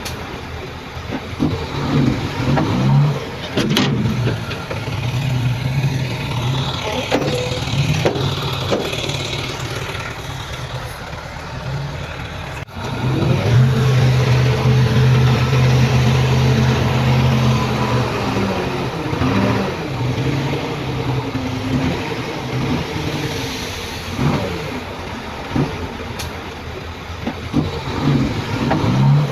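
Heavy diesel earthmoving machinery, bulldozer and dump truck engines, running and revving under load. There is a sudden break about halfway through, after which one engine holds a loud, steady note for several seconds.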